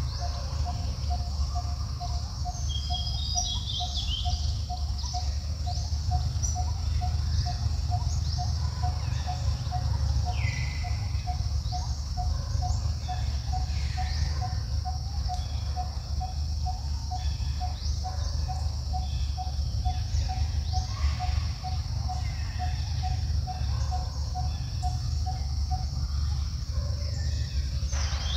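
Outdoor ambience: a steady high insect drone, a soft regular pulse repeating two or three times a second that stops near the end, and scattered short bird chirps, over a steady low rumble.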